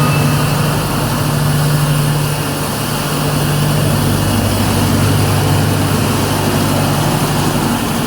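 Wood sawdust and veneer grinding machine running steadily, with a low hum over a dense rushing noise.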